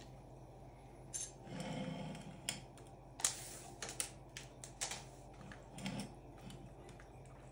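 A glass of iced drink handled on a table: scattered sharp clicks and taps, with a couple of short hissing rustles.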